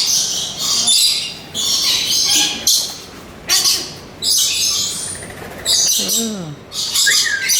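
Many birds screeching and chirping close by in rapid, shrill bursts, one after another.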